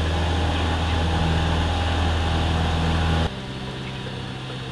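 Cessna 172M's four-cylinder Lycoming O-320 engine and propeller at full power on the takeoff roll, a loud, steady drone heard from inside the cabin. About three seconds in it drops suddenly to a quieter drone.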